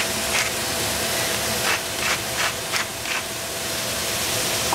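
Onion frying in a hot pan: a steady sizzling hiss with a few sharper crackles, one about half a second in and a cluster around two to three seconds in.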